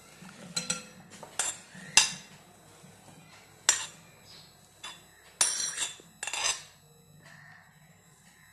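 Steel spoon clinking and scraping against a glass bowl and a china plate as soaked phulkiyan are spooned into yogurt. The clinks are scattered and irregular, the sharpest about two seconds in.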